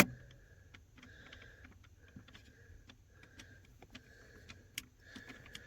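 Heavy breathing close to the microphone, a breath about once a second, with scattered small clicks from working the brake light switch's lock nut in a cramped space under the dashboard. One sharp click at the very start is the loudest sound.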